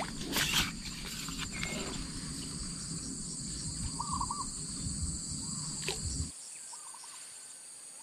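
Steady high-pitched insect chorus from the swamp, under a low handling rumble with a few knocks that stops abruptly a little past six seconds in; a couple of short chirps are heard.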